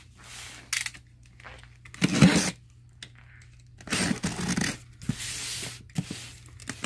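Utility knife slitting the packing tape along a cardboard box's seam, in a series of separate tearing strokes, the loudest about two seconds in.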